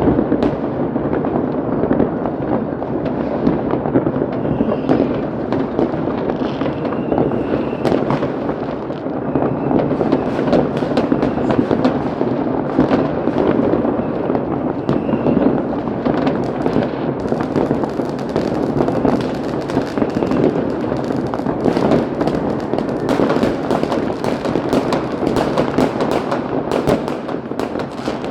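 Many fireworks going off at once: a dense, unbroken crackle of overlapping bangs and sharp cracks, growing denser in the second half, with a few brief faint whistles.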